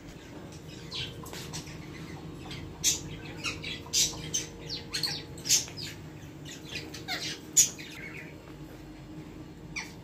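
Chicken chicks cheeping: many short, high calls in quick succession, busiest through the middle, with a sharper squawk near the end.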